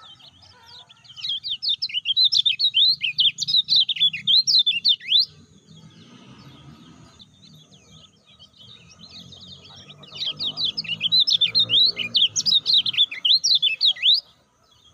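Kecial kuning (a white-eye) singing: two bursts of rapid, high-pitched chattering twitter, each about four seconds long, with a pause of several seconds between them.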